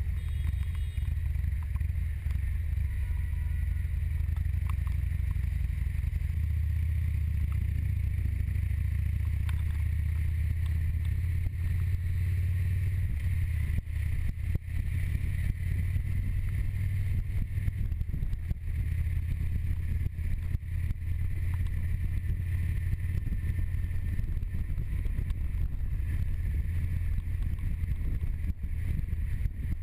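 Cruiser motorcycle engine running steadily while being ridden through traffic, a low rumble with some wind on the microphone.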